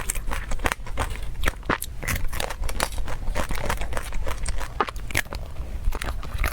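Close-miked eating: a person biting and chewing, with many small crisp crackles and clicks packed closely together.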